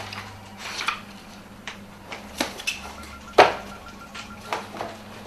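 Scattered clicks and knocks with brief rustling as objects are handled at a desk, the sharpest knock about three seconds in, over a steady low electrical hum.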